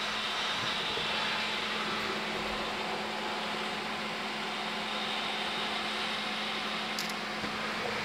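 Steady fan hum with a low drone from a Traeger pellet grill running at temperature, with one brief high click about seven seconds in.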